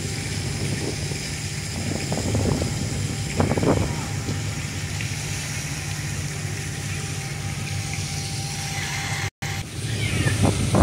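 Steady low engine rumble with faint voices in the background; the sound cuts out for an instant near the end.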